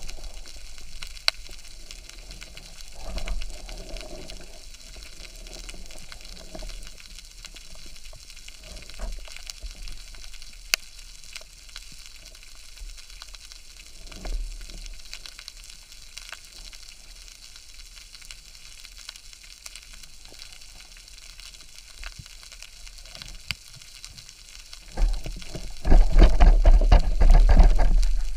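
Underwater ambience heard through a camera housing: a steady fine crackling with scattered sharp clicks. A few low surges of water noise come and go, the loudest in the last few seconds.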